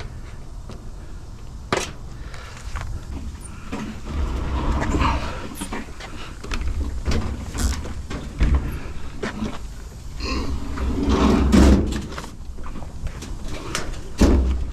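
Repeated knocks and thumps with stretches of scraping and rumbling, as heavy metal curbside scrap is handled and shifted.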